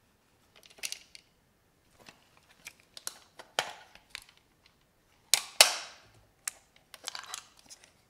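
Hands opening the battery cover at the base of a Bauer C107XL Super 8 camera's plastic pistol grip: scattered small plastic clicks and scrapes, the loudest two sharp snaps close together about five and a half seconds in.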